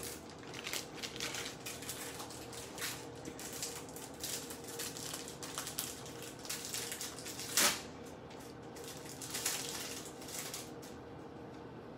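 Plastic packaging crinkling and rustling as hands rummage through wrapping in a box, in irregular crackles with a louder one about two-thirds of the way through, over a faint steady hum.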